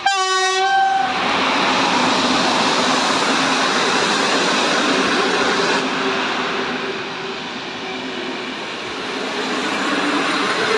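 An electric locomotive's horn sounds one blast of about a second, then the steady running noise of PKP Intercity passenger coaches' wheels on the rails as the train passes close by, easing off slightly and swelling again near the end.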